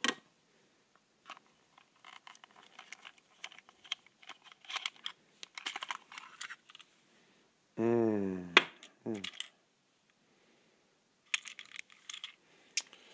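Small plastic clicks and knocks as a plastic toy train and its battery compartment cover are handled and turned over. There is a short murmur of a man's voice about eight seconds in.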